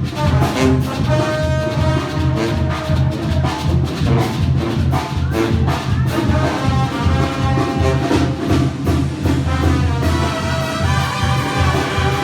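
Banda music: a Mexican brass band playing, with trumpets and trombones over a tuba bass line and drums keeping a steady, bouncing beat.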